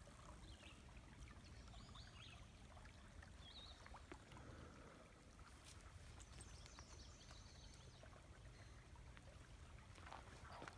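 Near silence: the faint steady rush of a river, with a few faint high chirps early on.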